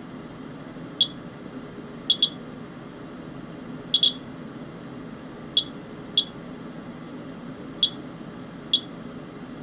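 Geiger counter beeping once per detected count: nine short, high beeps at irregular, random intervals, a few coming in quick pairs, as it counts a rain sample that reads hotter than background.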